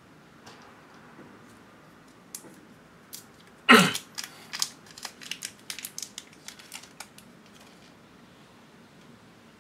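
Paintbrush knocked and rattled against a water container as it is rinsed: one loud knock, then a quick run of light clicks for about three seconds.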